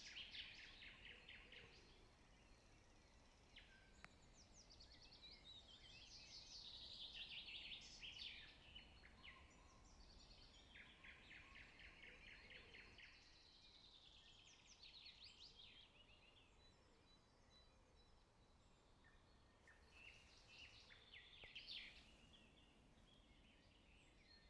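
Faint birdsong: several fast, descending trills and chirps, a few seconds apart, over a quiet background hiss.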